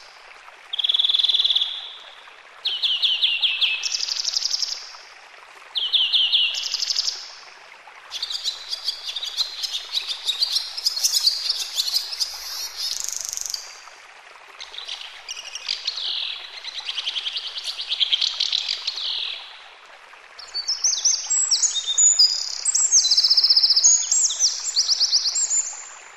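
Songbirds singing: a run of fast, high trilled phrases, each lasting one to three seconds with short pauses between, over a steady background hiss.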